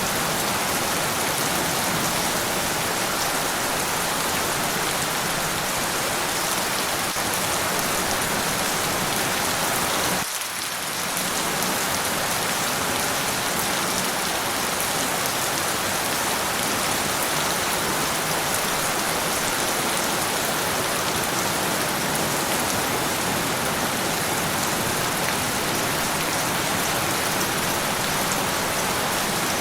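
Steady, dense rainfall hissing evenly, with a brief dip in level about ten seconds in.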